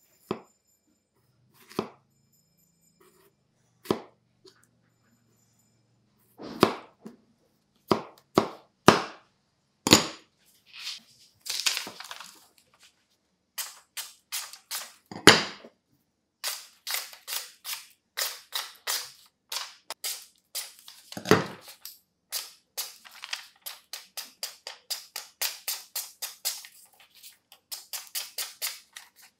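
A freshly sharpened Japanese kitchen knife being tested for sharpness: a few single knocks of the blade through a tomato onto a plastic cutting board near the start, then the blade slicing through hand-held sheets of paper, each cut a crisp snap, coming several a second in the second half. Two heavier, deeper thumps come in the middle of the paper cutting.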